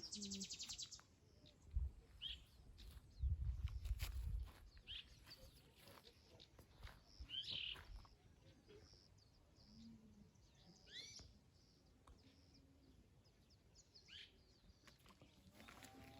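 Birds chirping faintly: short calls every few seconds. A few low rumbles in the first four seconds, the loudest near the start.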